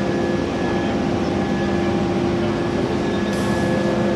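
Steady drone of hot forging line machinery, with the roller conveyor and ring rolling machine running and several steady hums over a rumble. A brief high hiss comes in about three seconds in.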